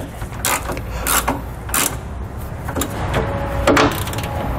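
Hand tools working the clamp bolts on a truck's air-spring upper bracket: about half a dozen short metallic clicks and scrapes at irregular intervals, over a steady low hum.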